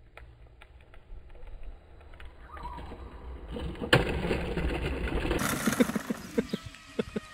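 Hoverboard go-kart rolling on tarmac: a low hum and rumble from its electric hub motors and small wheels, louder as it passes close by about four seconds in, with a sharp knock there and scattered clicks and knocks after.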